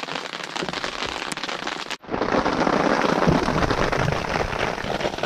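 Heavy rain and hail falling on the fabric of a pop-up ground blind, a dense patter of many small hits. It drops out for an instant about two seconds in and comes back louder.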